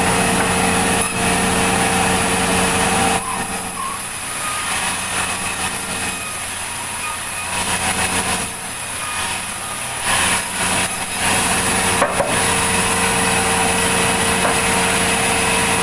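A sawmill saw running and cutting through a log, with a steady machine hum. Between about three and ten seconds in, the sound dips and turns rougher, then returns to the steady running sound.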